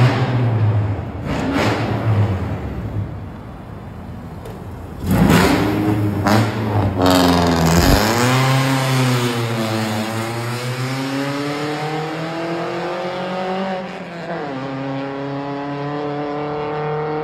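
Honda Civic Type R EK9's naturally aspirated B16B four-cylinder VTEC engine revving loud and rough for the first several seconds. After that its pitch dips and climbs repeatedly as the revs fall and rise.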